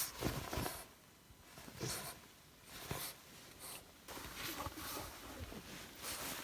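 English bulldog puppy making short, irregular noises and scuffling sounds, quiet and broken up.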